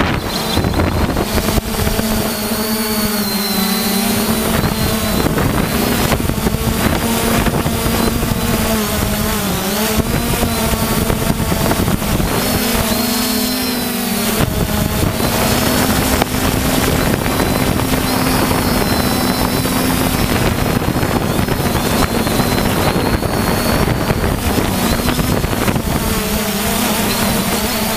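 Multirotor drone's electric motors and propellers whining in flight, heard close up from the drone itself. The pitch wavers up and down repeatedly as the motor speeds change.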